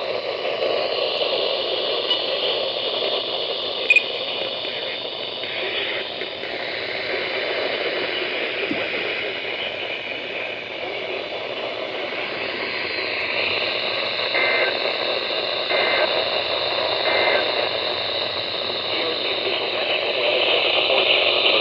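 Steady hiss of static from a weather radio receiver, with the broadcast voice lost in it. There is a short click about four seconds in and a few faint brief beeps later on.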